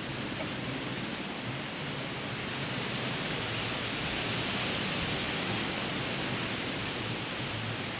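Heavy rain pouring down in strong wind during a cold-front storm, a steady rushing noise that swells a little louder around the middle.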